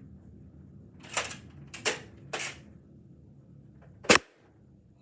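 Nerf foam-dart blaster: three short clacks of the blaster between about one and two and a half seconds in, then a single sharp shot about four seconds in.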